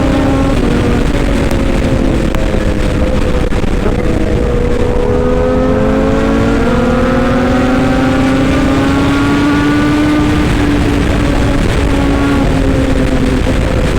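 Excavator engine running steadily, its pitch dipping a little, then slowly rising through the middle and settling back near the end.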